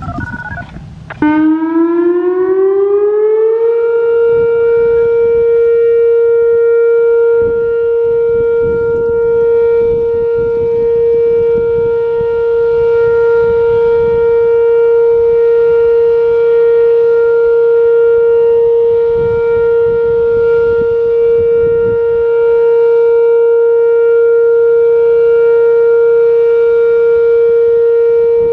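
Whelen WPS-2809 electronic outdoor warning siren sounding its Alert signal. The tone comes on a little over a second in, rises in pitch for about two seconds, then holds one loud steady tone.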